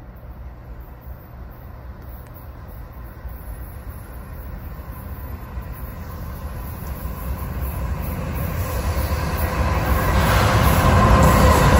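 CSX intermodal freight train approaching on diesel locomotive power: a deep rumble that grows steadily louder as it nears. A steady high tone comes up strongly in the last couple of seconds as it arrives.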